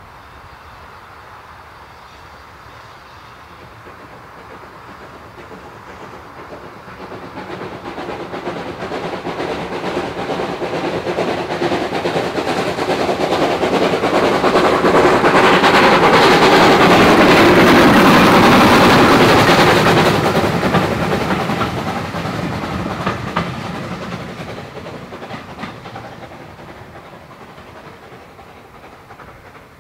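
Peckett 0-4-0 saddle tank steam locomotive working hard under steam with a fast, sharp exhaust beat, approaching, passing loudest a little past halfway, then fading as it draws away. The wheels of its train clatter over the rail joints as it goes by.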